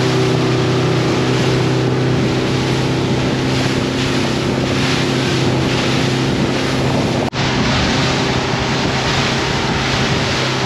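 Motorboat's engine running steadily at speed, a constant drone, with wind buffeting the microphone and the rush of water from the wake in choppy seas. The sound cuts out for an instant about seven seconds in.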